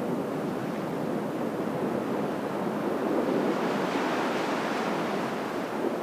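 Surf washing on the shore, mixed with wind noise on the microphone. The noise swells and brightens for a couple of seconds past the middle.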